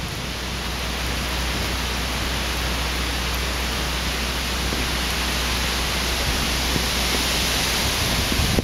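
Hurricane wind and heavy rain making a steady, even hiss, with a steady low rumble underneath.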